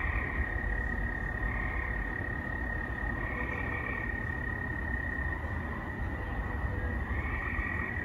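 Field crickets calling in a steady, unbroken high tone, with gray tree frogs trilling over them on and off, four times.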